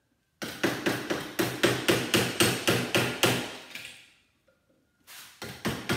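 Hammer striking the end of a screwdriver, driving it down through the plastic of a leaf blower's motor clamped in a vise. A quick run of taps, about four or five a second, lasts about three seconds, then a pause, then another run near the end.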